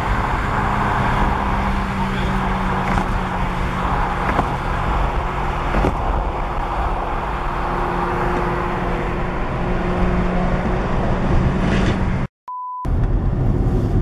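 Steady road and wind noise inside a car's cabin at highway speed, with the engine humming underneath. Near the end the sound drops out for about half a second, broken by a short single-pitch beep, then the road noise returns.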